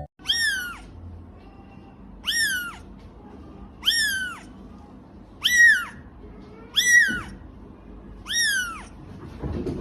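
A cat meowing six times in a row: short, high calls that rise and then fall, about one every second and a half.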